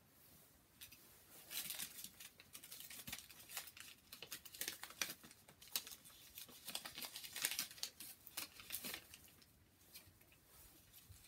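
Candy bar wrapper crinkling and crackling as it is handled and peeled back from a dark chocolate bar, in irregular spells of crackles through most of the stretch.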